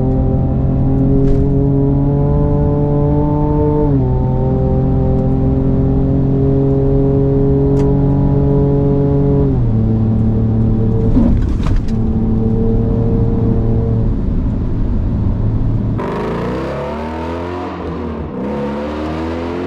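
Ford Ranger Raptor's twin-turbo V6 pulling under acceleration. The engine note climbs slowly and drops sharply twice as the transmission upshifts, then holds steady. Near the end it turns noisier and rises again in quick sweeps.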